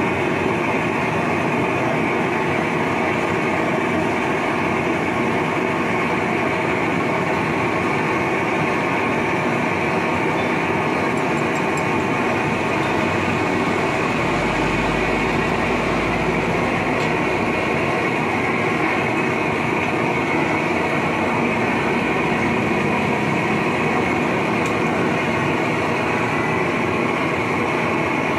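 LPG gas torch burning steadily with a loud, even rushing noise, its flame heating a small steel crucible to melt scrap aluminium for casting a piston.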